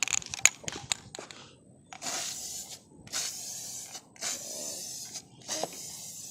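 Aerosol spray-paint can sprayed in four short hissing bursts with brief pauses between them, as in sweeping spray-painting passes; a few clicks come before the first burst.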